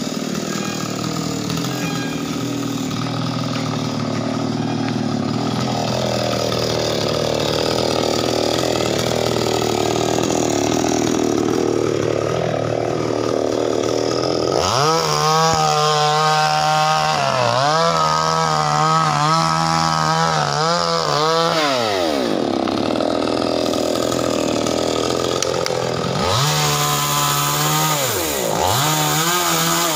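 A chainsaw running, its engine pitch swinging up and down as it is revved again and again, most clearly from about halfway through.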